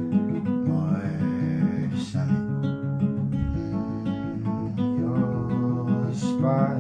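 Acoustic guitar strummed steadily through a C–Em–Am–F chord progression, with a man singing a slow melody over it.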